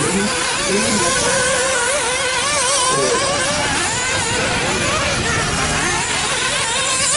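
Several 1/8-scale nitro RC buggies' small two-stroke glow engines running at high revs together, their pitch rising and falling quickly as the drivers blip the throttle on and off through the track.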